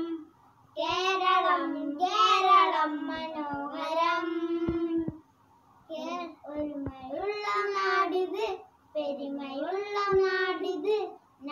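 Boys singing a song unaccompanied, in held phrases with two brief pauses.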